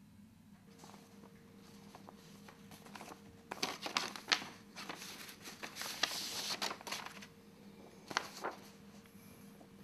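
Paper rustling and crinkling as an envelope is opened and a letter is pulled out and unfolded, busiest from about three and a half to seven seconds in, with a couple of sharp crackles about eight seconds in.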